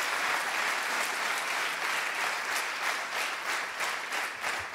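Theatre audience applauding, a dense wash of clapping that thins in the second half into more distinct separate claps as it dies down.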